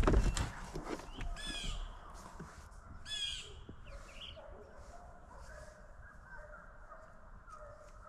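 A brief knock right at the start, then two loud animal calls about one and a half and three seconds in, followed by fainter calls that keep going.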